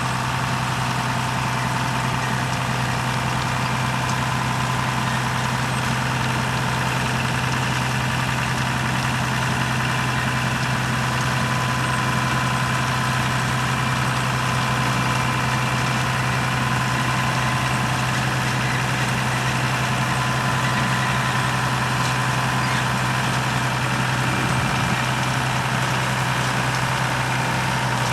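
Heavy diesel farm machinery running steadily: a constant low engine hum with a thin steady higher tone above it.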